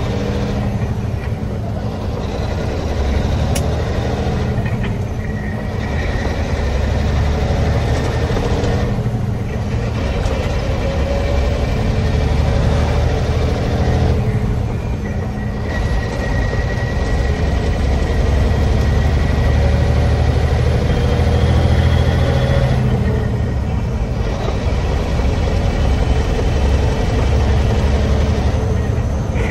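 Volvo VN semi tractor's diesel engine running at road speed while hauling a loaded trailer, heard from inside the cab with road noise: a steady, loud low drone whose pitch shifts slightly now and then.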